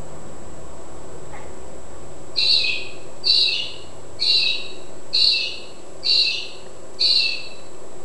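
A bird outside calls loudly six times, about once a second, each call short and dropping slightly in pitch.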